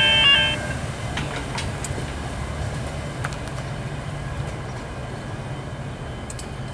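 V/Line VLocity diesel multiple unit rolling slowly into a station, its diesel engines running with a steady low drone, with a few faint clicks from the wheels on the track.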